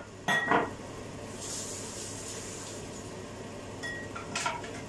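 A metal utensil clinking against a cooking pot, twice near the start and twice near the end, with a soft hiss in between, as tempered yogurt is stirred into a yogurt soup.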